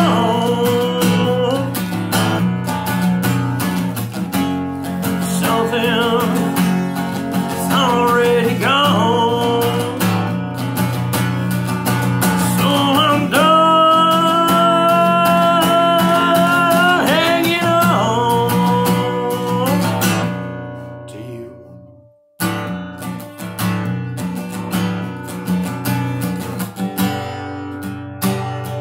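A man singing with strummed acoustic guitar chords. About twenty seconds in, the voice and guitar fade away to a brief near silence. The guitar strumming then starts again on its own.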